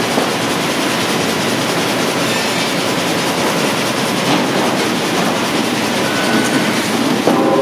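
Esterer HDSN frame-saw line running: a loud, steady clatter of sawmill machinery and roller conveyors as a sawn cant is carried along. Near the end a steady whine sets in.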